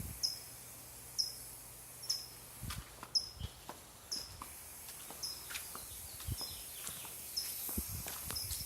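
A high-pitched chirp repeating evenly about once every three quarters of a second, from a small animal such as a cricket or bird, with a few soft taps scattered through.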